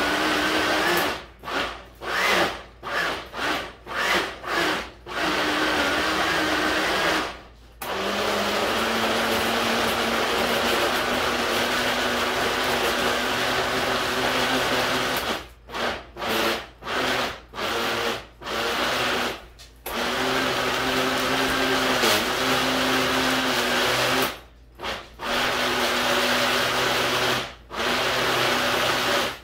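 Countertop blender running on a mixture of green chili peppers, garlic and oil, switched off and on in a run of quick pulses between longer runs, and stopping near the end.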